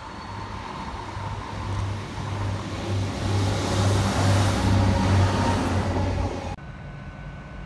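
Transport for Wales Class 175 diesel multiple unit passing, its diesel engines giving a low pulsing hum under a rushing noise that grows to its loudest as the train goes by. The sound cuts off abruptly about six and a half seconds in.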